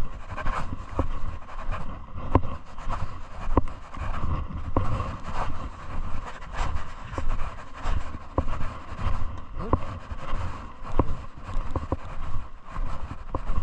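Footsteps on paving stones, regular and paced, with wind rumbling on the microphone.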